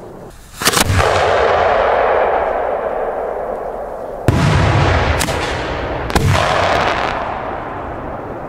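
Aerial firework shells bursting overhead. A loud double bang comes just under a second in, then three more bangs about four, five and six seconds in, each trailing off into a long, slowly fading rumble.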